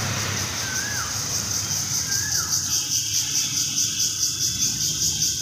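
High, evenly pulsing insect chorus, with two short rising-and-falling bird whistles in the first half. A low rumble of road traffic underneath thins out about two seconds in.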